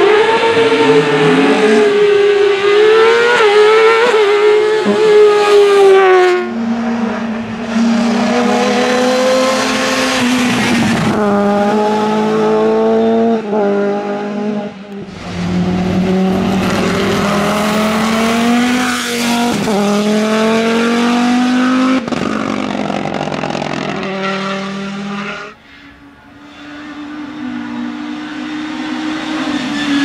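Hillclimb race cars accelerating hard up the course one after another, engines revving high and climbing in pitch through the gears, with a sharp drop at each upshift. The sound cuts suddenly from one car to the next three times.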